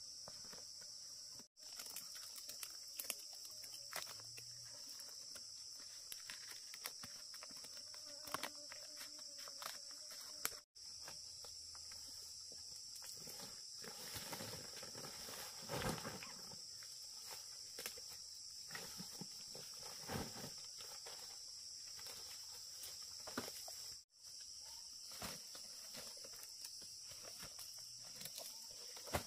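Steady high-pitched chorus of insects in the forest, with scattered rustles, snaps and footsteps in vegetation; the sound drops out briefly three times.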